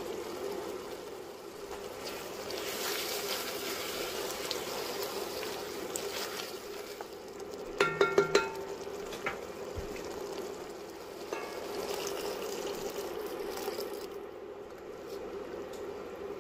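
Tomato and cashew curry sauce sizzling in an enamelled cast-iron pot as a spatula stirs through it. About eight seconds in there is a quick run of four or five sharp, ringing clacks, the loudest sounds, as the spatula strikes the pot.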